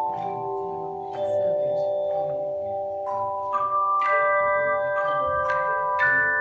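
Handbell choir playing: struck bells ring out in overlapping chords that sustain. New notes are struck about once a second.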